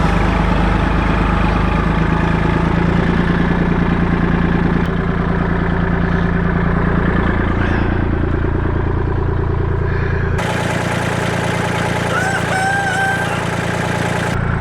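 A vehicle engine running steadily; after an abrupt cut about ten seconds in, a rooster crows once.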